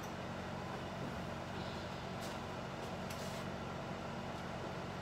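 Steady low hum and hiss of a running kitchen appliance, with a couple of faint clicks a little past the middle.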